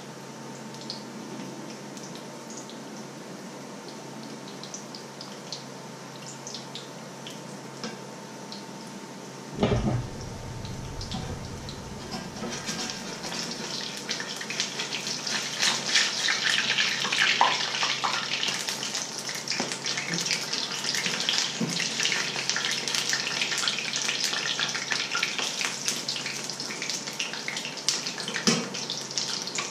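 Fritters frying in hot oil in a pan: a low, even sizzle with light crackles, a dull knock about ten seconds in, then from about twelve seconds a louder, busier crackling sizzle as the fritters are turned.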